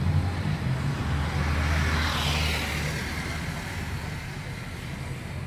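A motor vehicle passing on the street: a low engine rumble with a swell of rushing noise that peaks about two seconds in and then fades away.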